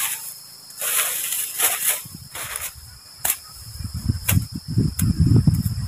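Dry bamboo leaves and litter rustling as bamboo poles are handled, then a machete chopping at grassy ground: a few sharp knocks and bursts of dull thuds in the second half. Crickets chirp steadily throughout.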